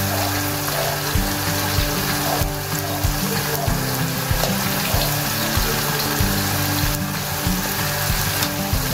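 Cornstarch-coated chicken pieces deep-frying in a wok of hot oil: a steady, dense bubbling sizzle. Background music with a steady beat plays underneath.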